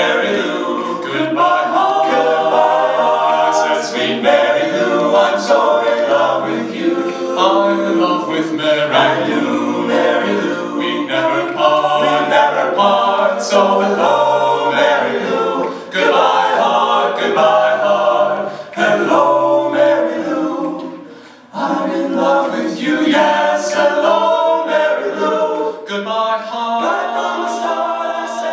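An a cappella vocal group sings in close harmony with no instruments. There is a brief break between phrases about 21 seconds in.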